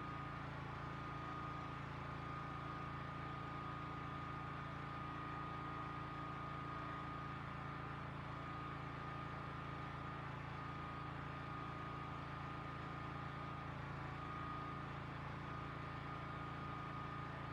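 Generator running steadily: a continuous low engine hum with a thin, steady high tone above it. It is running to make electricity for an off-grid site while there is no sun.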